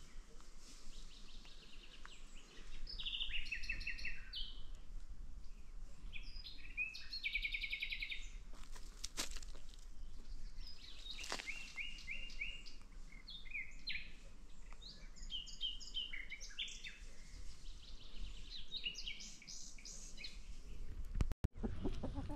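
Wild songbirds singing: repeated bursts of rapid high trills and chirps, over a steady low rumble in the background.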